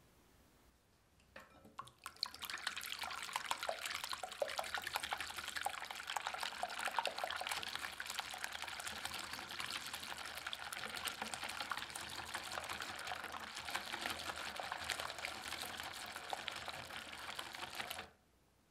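Egg whites beaten briskly with a silicone-coated balloon whisk in a glass bowl, loosened until no lumps remain: a steady wet swishing and sloshing full of small clicks. It starts about two seconds in and stops abruptly near the end.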